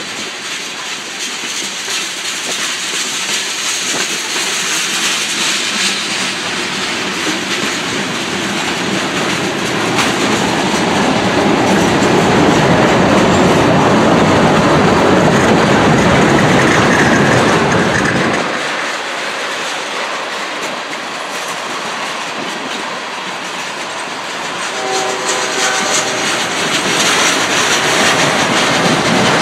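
Loaded freight cars (tank cars, then autoracks) rolling past close by: a steady rumble and clickety-clack of steel wheels over the rail joints. It is loudest about halfway through, the deep rumble falls away suddenly after that, and a brief pitched tone sounds near the end.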